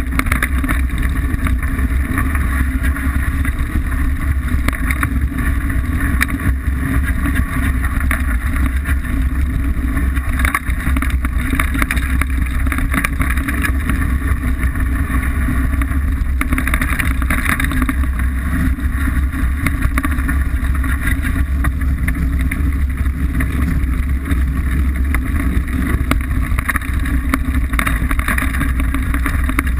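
Steady wind rumble on a bike-mounted camera's microphone as a Liteville 301 full-suspension mountain bike rides down rough singletrack, with the tyres rolling over dirt and stones and the bike rattling in many small clicks.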